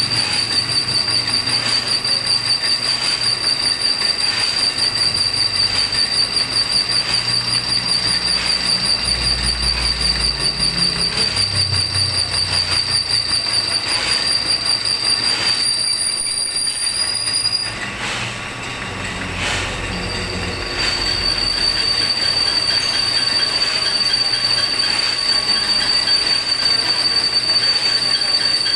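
Metal lathe cutting steel, the tool giving a steady high-pitched squeal over the machining noise. The squeal breaks off for about three seconds around two-thirds of the way through, then starts again.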